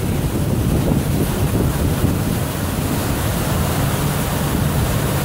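Pontoon tour boat under way: steady wind buffeting the microphone over the rush of water from its wake, with a low, steady engine hum underneath.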